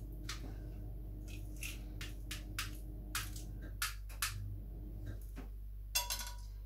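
Small clicks and clinks of a glass spice jar and its metal lid being handled and prised open, with a louder ringing clink about six seconds in.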